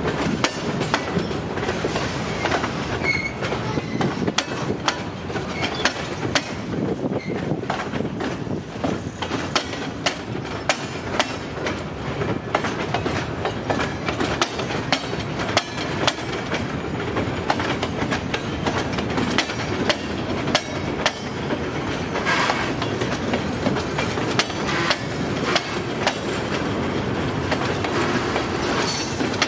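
Freight cars rolling past at speed, their steel wheels clacking over the rail joints in a steady stream of knocks and rattles, with a few brief high squeals from the wheels.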